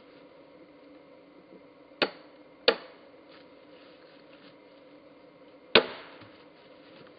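Sledgehammer striking a steel splitting wedge driven into an Osage orange fence-post log: three sharp, ringing blows, two close together about two seconds in and a third about three seconds later.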